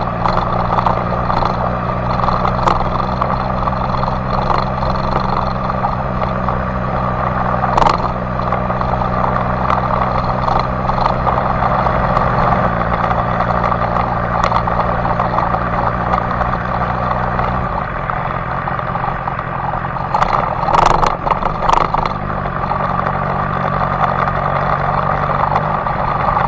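BMW S1000XR's inline-four engine running at steady road speed on a dirt track, over a constant rush of wind and tyre noise. The engine note drops twice, about 12 and 18 seconds in, and picks up again near the end, with a few sharp knocks along the way.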